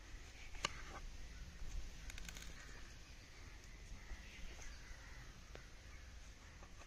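Kitchen knife cutting through a watermelon on a wooden board: a few sharp clicks and faint crunches of the blade going through the rind.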